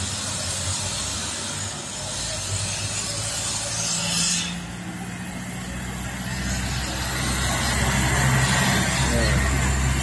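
Diesel engine of a box truck labouring up a hill, a steady low drone that grows louder as the truck nears and passes close. Before that, mixed road traffic with a high hiss, which cuts off abruptly about four and a half seconds in.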